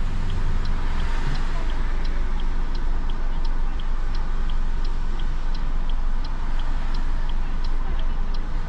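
A car's turn-signal indicator ticking steadily, alternating tick and tock about three times a second, over the steady rumble of the car driving on the road, heard from inside the cabin.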